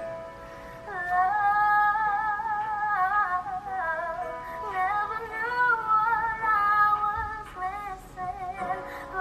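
A young girl's high solo singing voice, holding long notes with vibrato, over a faint steady backing.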